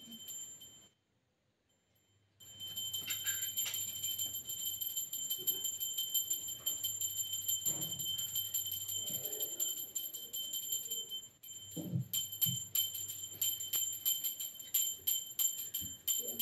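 Puja hand bell rung rapidly and continuously, a high ringing over a quick clatter of clapper strokes. It cuts out for about a second and a half near the start and pauses briefly about two-thirds of the way through.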